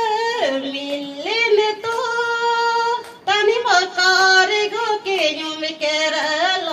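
A woman singing a Christian gospel song solo into a microphone, holding long notes, with a short break for breath about three seconds in.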